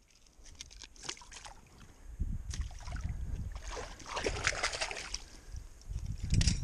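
Water splashing and sloshing as a stick is pushed into shallow water by hand and a person wades, with low rumbling from about two seconds in.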